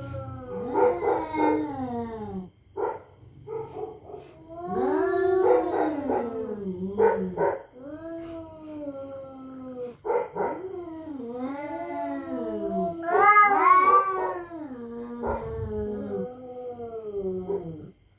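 Two cats caterwauling at each other in a territorial standoff: long, wavering yowls that rise and fall in pitch and overlap. The loudest and highest cry comes about three quarters of the way through.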